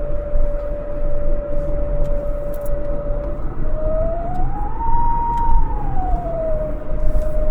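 AM radio tuned to 960 kHz, giving out static and crackle under a steady whistle tone. About halfway through, the whistle glides up in pitch, holds for a moment, then slides back down to its first pitch.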